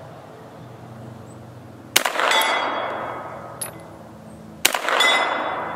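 Two shots from a Double Star 9mm AR-15 pistol, about two and a half seconds apart. Each is followed by a long echo that fades over a second or two.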